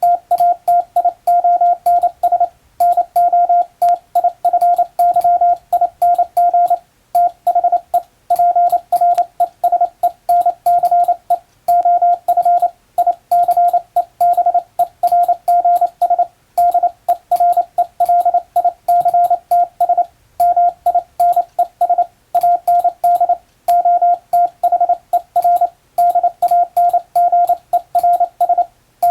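Hand-sent Morse code: a steady tone of about 700 Hz keyed on and off in dots and dashes, with a faint sharp click at each keystroke. The characters run in a quick, even stream, broken by short pauses between groups.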